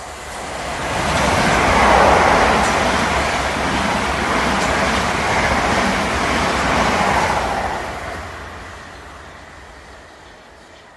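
Three coupled Class 387 Electrostar electric multiple units passing at speed: the rush of wheels on rail and air swells to its loudest about two seconds in, holds for several seconds while the carriages go by, then fades as the train draws away.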